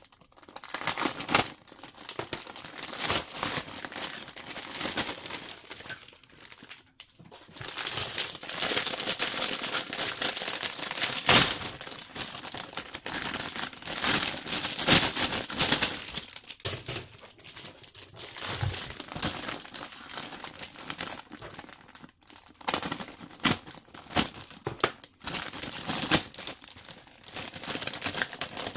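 Plastic bags of model-kit parts runners crinkling and rustling in irregular bursts as they are handled and torn open, with a brief pause now and then and one sharp snap in the middle.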